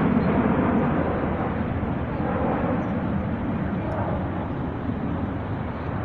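Military jet aircraft flying over: a steady rushing noise that slowly fades.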